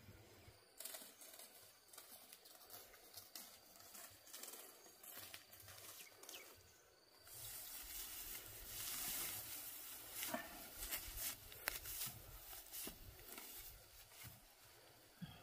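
Dry cut rice straw rustling and crackling as it is gathered by hand into a large bundle, starting about halfway through. Before that, quiet open-air ambience with a few faint rustles.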